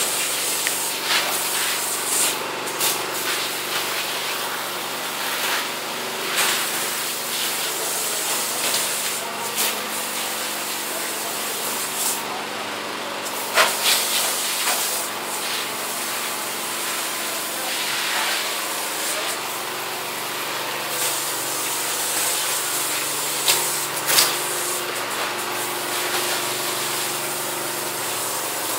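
Hose nozzle spraying liquid, a steady hiss, with a few sharp clicks about halfway and two-thirds of the way through.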